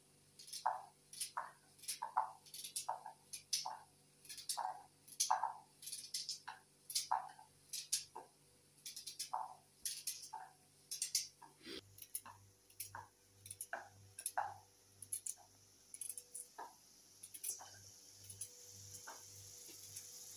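Knife cutting raw carrots into small pieces by hand, a crisp crunch with each cut, roughly one and a half cuts a second. The cuts are regular for the first half and grow sparser and fainter later on.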